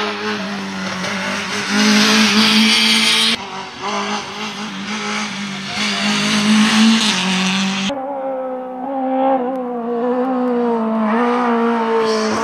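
Rally car engine running hard at high revs, its pitch climbing and dipping through gear changes. The sound changes abruptly twice, about three and eight seconds in.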